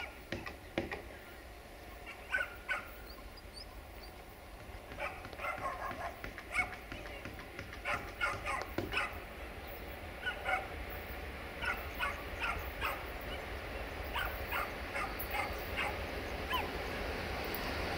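A dog barking repeatedly, in short separate barks, over the low rumble of an approaching CFR 060-DA (LDE2100) diesel-electric locomotive with its Sulzer engine. The rumble grows steadily louder through the second half.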